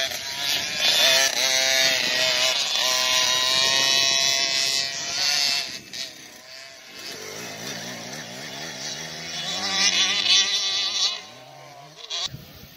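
KTM 65 two-stroke motocross bike revving hard on the track, its engine pitch climbing and dropping repeatedly as it shifts. It fades about halfway, then revs up loud again before dropping away near the end.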